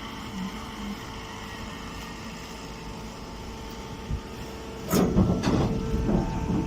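Machinery running with a steady hum. About five seconds in, a much louder mechanical clattering starts abruptly and keeps going.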